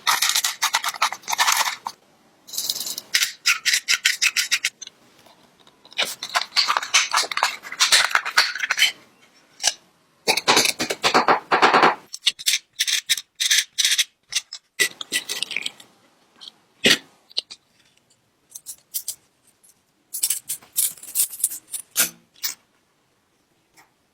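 Bursts of rapid back-and-forth scraping on rusty metal, stopping and starting, with a couple of single sharp knocks in the second half.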